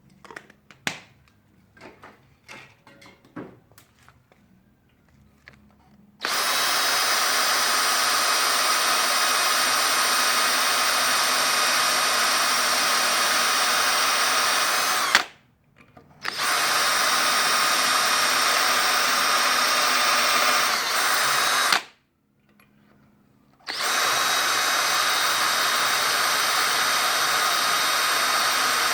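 Electric drill drilling into the shifter shaft end to prepare it for tapping, with a few light handling clicks first. The drill then runs at a steady speed in three long spells, with two short stops between them.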